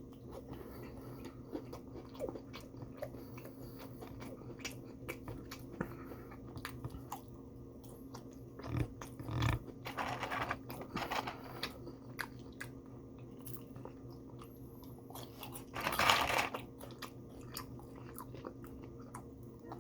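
Close-up chewing and biting of fried fast-food chicken, with many small mouth clicks. Two louder bursts of noise come about ten and sixteen seconds in, and a steady low hum runs underneath.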